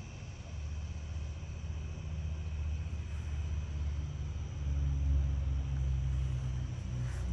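Low outdoor rumble that swells about five seconds in, under faint steady chirring from crickets.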